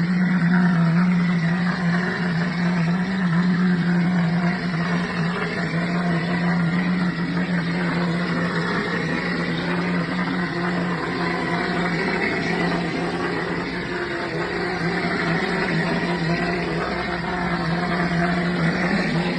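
220-volt electric plaster spraying machine running steadily, a constant motor hum under a busy mechanical whir.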